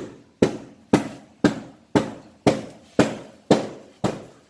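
Steady hammer blows on the Mustang's wheel-well sheet metal, about two strikes a second, each with a short ring. The welded seams and lip are being beaten back to clear an over-wide tire that has been rubbing on them.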